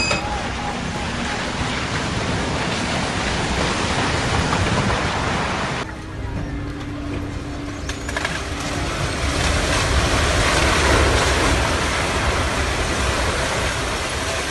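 Heavy demolition noise: an excavator working with a steady rushing din of breaking and falling material. It changes abruptly about six seconds in, where a faint engine hum shows, and swells louder again later on.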